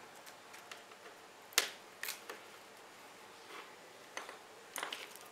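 Several light clicks and taps from handling multimeter test probes and wires against a small converter circuit board, the sharpest about one and a half seconds in.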